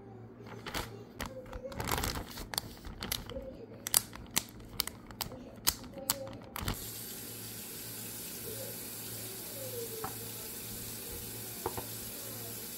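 Crinkling and crackling of a plastic bag being handled, with many sharp clicks. About halfway through, a steady hiss starts suddenly and then holds level.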